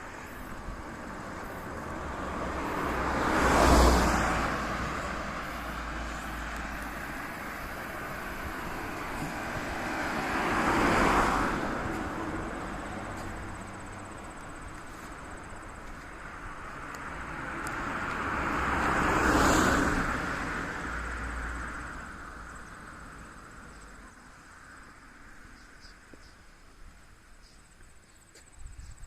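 Three cars driving past one after another, each swelling and fading over a few seconds, about four, eleven and nineteen seconds in.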